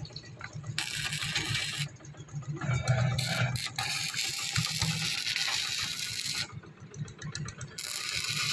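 Electric arc welding on steel formwork supports: a steady crackling hiss that breaks off briefly about two seconds in and again for over a second near the end, over a low hum.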